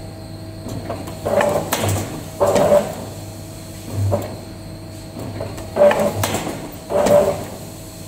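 CNC wire bending machine at work: its servo-driven bending head makes short, sharp mechanical moves as it bends steel wire, some with a brief whine, about once a second, over a steady machine hum.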